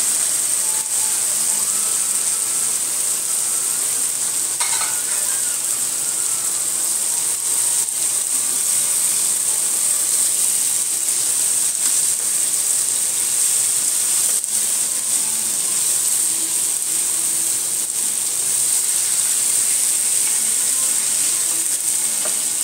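Boiled beef tripe frying in spiced oil in a pan, a steady high sizzle, with a wooden spatula stirring and now and then clicking against the pan.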